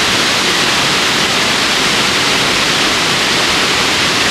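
Screw Auger Falls, a waterfall pouring through a rocky granite gorge: a steady, loud rush of falling water.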